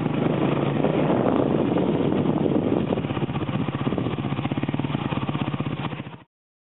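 An engine running steadily with a rapid, even beat, which cuts off abruptly near the end.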